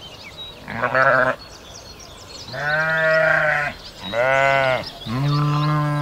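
A farm animal bleating four times: a short bleat about a second in, then three longer bleats close together. Faint high chirps sound behind it.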